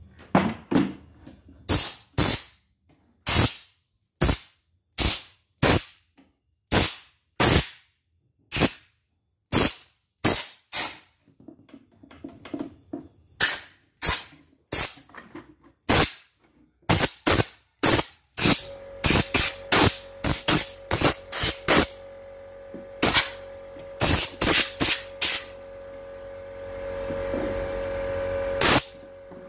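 Repeated short blasts of compressed air from a hand-held air blow gun, blowing dust out of an embroidery machine's carriage unit. A steady hum comes in about two-thirds of the way through, and near the end one longer blast is held for a couple of seconds.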